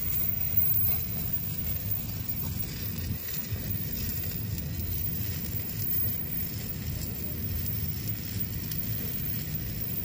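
Stick-welding arc crackling and sizzling steadily over a low steady hum, as the first pass is run around a flange-to-reducer joint.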